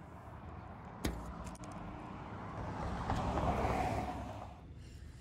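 A vehicle passing, its rush of noise swelling over a couple of seconds and then cutting off suddenly, with a single sharp click about a second in.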